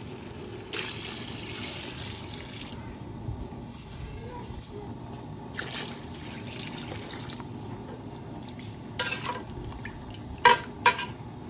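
Water poured from a metal jug into an aluminium pot, splashing into the curry broth. Near the end a slotted steel spatula clinks sharply against the pot twice.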